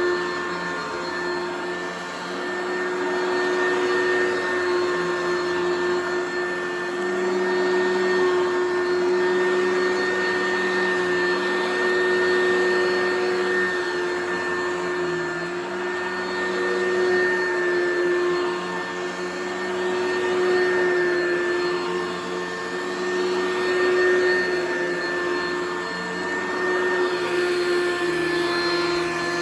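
Household vacuum cleaner running continuously with a steady motor whine. Its loudness swells and dips gently every few seconds as it is pushed back and forth.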